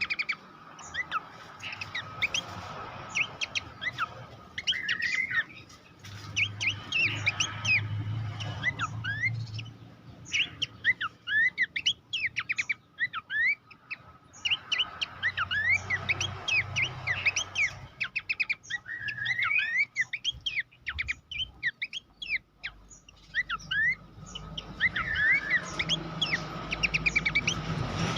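Pelanduk semak babbler singing: fast runs of high chirps and sweeping whistles in bursts of a few seconds, broken by short pauses, over a faint steady hum.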